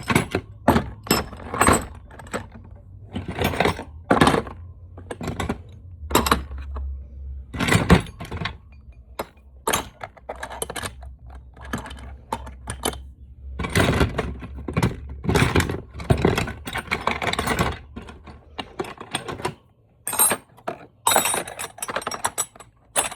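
Metal sockets and hand tools clinking and rattling as they are handled and set into a toolbox, in many separate clatters with a short lull near the end.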